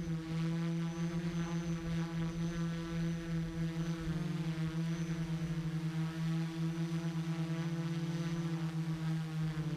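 Small multirotor drone's electric motors and propellers buzzing at a nearly steady pitch, as picked up on board. The loudness pulses rapidly as the several motors beat against each other while the quad holds a gentle cruise.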